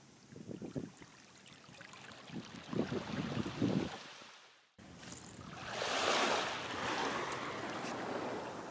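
Underwater water sound effects: low, irregular bubbling for the first four seconds or so. After a sudden cut, a steady rushing wash of water like surf.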